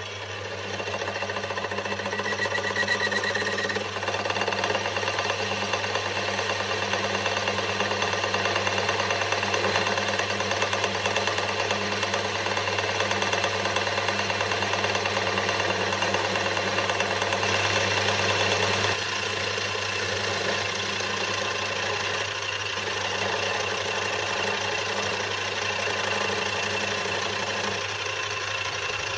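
Small bench metal lathe boring out the bore of a crank release lever. The motor runs with a steady hum while the boring bar cuts, and the cutting noise comes in about half a second in and eases a little about nineteen seconds in.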